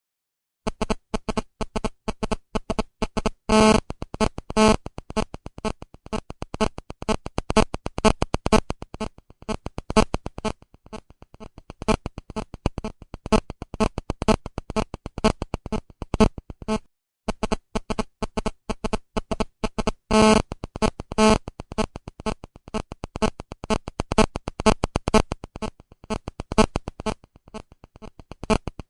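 Phone vibration buzzing in rapid short pulses, several a second, with two longer, louder buzzes a few seconds in. The run breaks off briefly about halfway and then the same pattern repeats.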